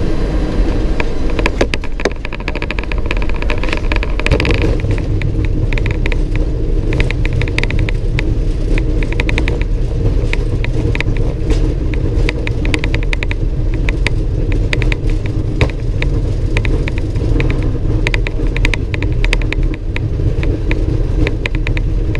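Boeing 737 landing rollout heard from the cockpit: a heavy, steady rumble of the engines and the wheels on the runway, with constant rattling and clicking around the flight deck. The low rumble grows stronger about four seconds in.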